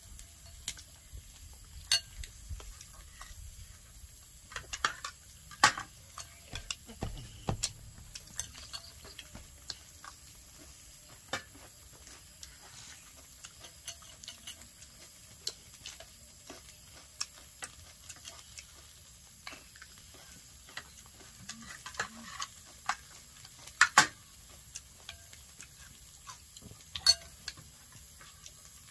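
Scattered clinks and scrapes of metal spoons and forks on plates and a bowl while eating, with sharper isolated clicks spread through and the loudest about three quarters of the way in.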